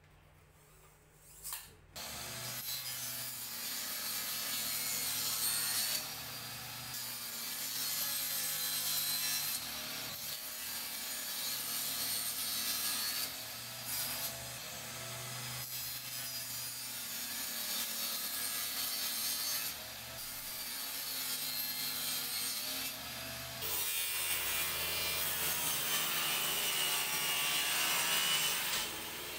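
Table saw running and cutting plywood, a steady high whine with a rasping cut; it starts about two seconds in, and its tone shifts suddenly a few times.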